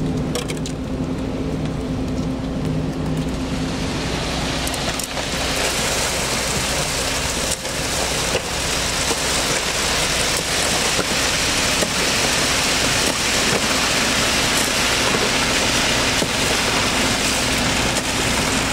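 Concrete mixer truck's engine running steadily. A loud rushing hiss builds in about four seconds in and keeps on over it.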